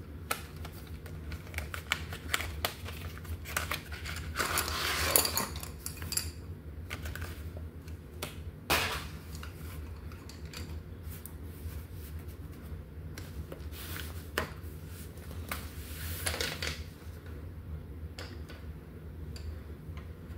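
Wooden coloured pencils being taken from a cardboard box and laid out on a table: scattered clicks and light clatter of pencils knocking together and on the tabletop, with two brief rustling scrapes, over a low steady hum.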